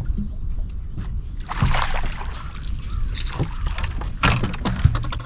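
Water splashing and sloshing at the side of a small fishing boat in a series of short bursts, over a steady low rumble.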